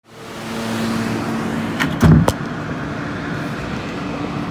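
New York City subway R160A train standing at an underground platform: a steady hum from the train under the station's noise, with a few loud clunks about two seconds in.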